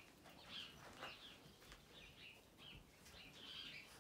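Small birds chirping faintly: short chirps repeated every half second or so.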